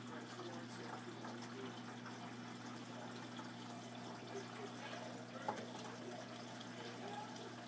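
Front-loading washing machine in its wash cycle: water and laundry sloshing in the drum over a steady motor hum. A single sharp click about five and a half seconds in.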